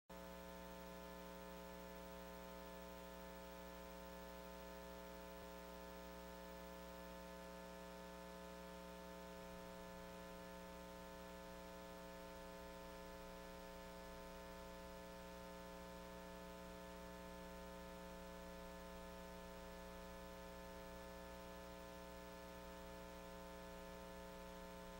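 Faint, steady electrical mains hum with a row of evenly spaced overtones and a little hiss.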